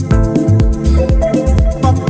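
Electronic background music with a steady beat and held melodic tones.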